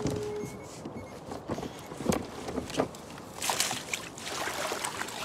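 Irregular knocks and clatter of gear being handled aboard a fishing kayak, with water sloshing and splashing against the hull, loudest a little past halfway.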